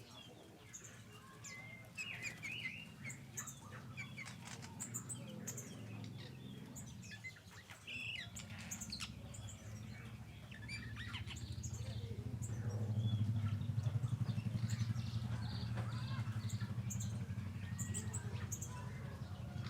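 Small aviary birds chirping and calling, many short high chirps overlapping throughout. A steady low hum runs beneath, louder in the second half.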